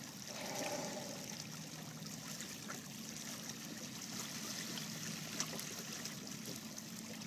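Water washing and trickling steadily along the hulls of a Hobie 16 catamaran under sail.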